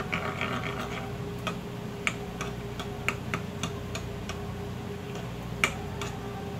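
Metal spoon clinking against a small bowl while stirring a thick mayonnaise sauce: light, irregular ticks, with one louder clink near the end. A steady low hum runs underneath.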